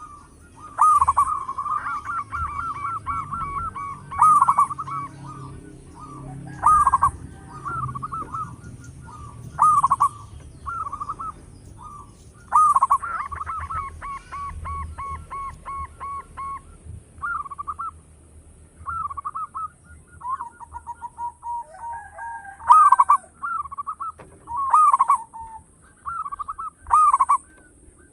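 Zebra dove (perkutut) cooing: repeated phrases of quick, rippling notes around a mid pitch, one every two to three seconds, with a few longer trilled runs.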